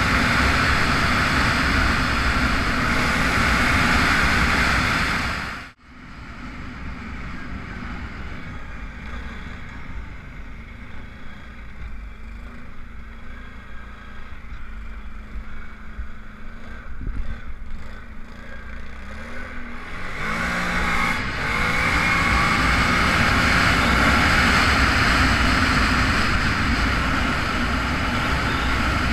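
Arctic Cat 1000 XT ATV's V-twin engine running under way with heavy wind rush on the microphone. The sound drops out abruptly about six seconds in, and the engine runs quietly at low speed. Near twenty seconds it revs up through the gears and the wind rush builds again as it gets back up to speed.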